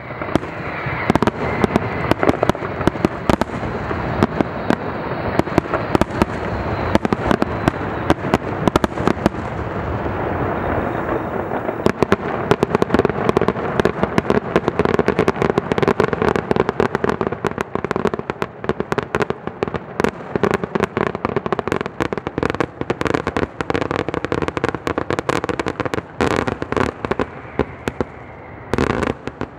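Aerial fireworks in a dense closing barrage: a rapid, continuous string of bangs and crackling that thins out and fades near the end as the display finishes.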